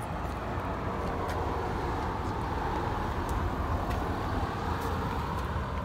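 Road traffic: a car passing on the street, its tyre and engine noise swelling and then fading over a steady low rumble.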